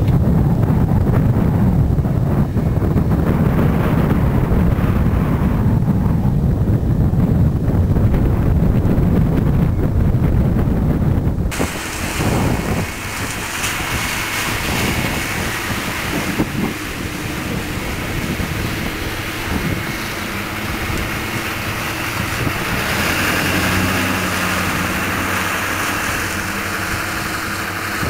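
Wind rumbling on the microphone for about the first eleven seconds, then an abrupt change to a steady rushing hiss with a faint low hum underneath.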